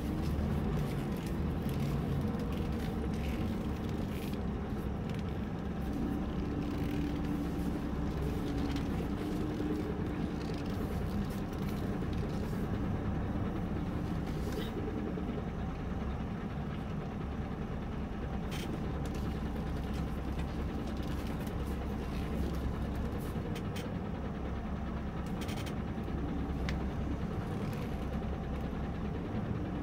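Scania R730's V8 diesel engine running steadily, heard from inside the truck's cab, with a few faint clicks.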